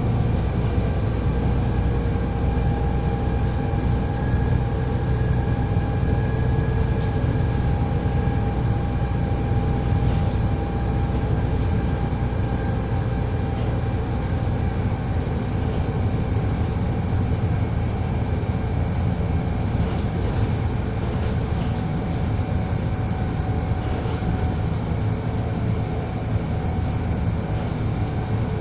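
Volvo ALX400 double-decker bus's diesel engine running steadily with a low rumble, with several steady high whining tones over it, which the uploader puts down to a weird fan belt noise.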